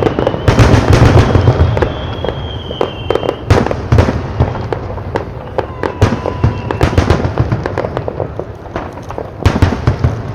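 Aerial fireworks display: a dense run of bangs and crackling in the first couple of seconds, then scattered bursts and pops. A high whistle sounds over the bangs early on.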